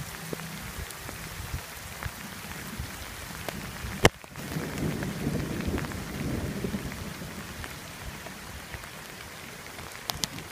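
Steady rain falling. About four seconds in comes one sharp crack, followed by a few seconds of low thunder rumble.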